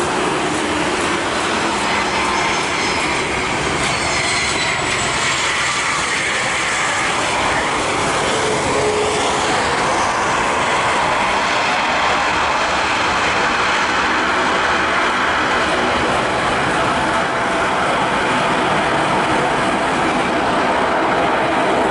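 Jet airliner engines at high power, a loud steady rushing noise with a falling whine a few seconds in as the aircraft passes.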